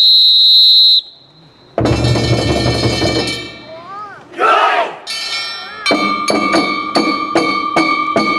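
One loud, steady whistle blast lasting about a second, then festival drumming starts with a heavy drum beat. A group shout comes about halfway through, and after that a metal gong is struck quickly and evenly, about three to four times a second, over held tones.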